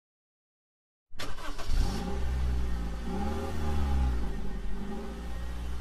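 A car engine starting about a second in, then running with a steady low rumble while it is revved up and back down twice.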